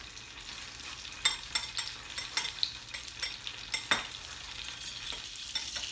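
A metal fork stirring eggs in a ceramic bowl, with irregular taps and clinks against the bowl. Under it, a steady hiss of butter sizzling as it melts in a pan.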